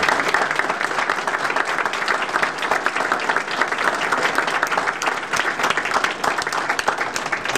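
An audience in a meeting room applauding, a steady patter of many hands clapping that tails off near the end.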